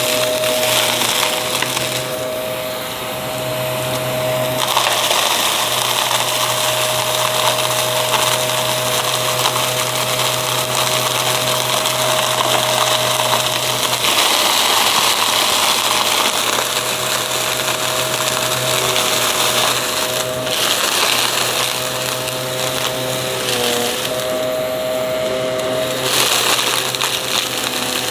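Aspiron vacuum cleaner running with a steady motor whine and rushing airflow, crunching as it sucks up dry debris; the rush changes character every few seconds as the nozzle moves.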